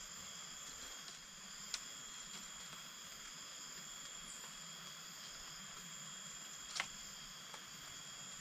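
Steady chorus of insects, several high tones held without a break, with a faint hiss beneath. Two sharp clicks or knocks cut through it, about two seconds in and the louder one near the end.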